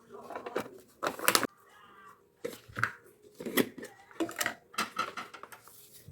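Small objects being handled at close range: an irregular run of sharp clicks and taps mixed with soft rustling.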